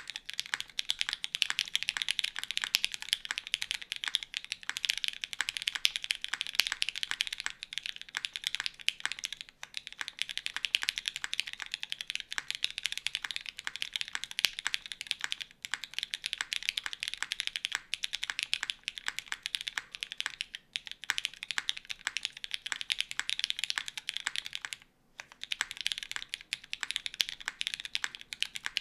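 Fast, continuous typing on a gasket-mount mechanical keyboard with an aluminium plate, lubed and filmed Cherry MX Black linear switches and GMK doubleshot ABS keycaps, with a brief pause about 25 seconds in.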